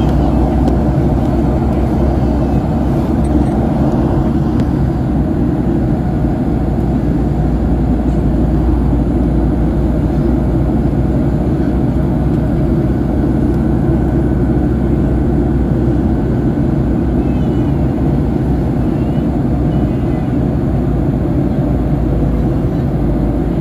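Steady, deep cabin drone of a Southwest Airlines Boeing 737 in flight: engine and airflow noise heard from inside the cabin at a window seat over the wing.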